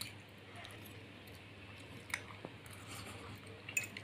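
Faint chewing of noodles, with a few light clicks of forks against plates.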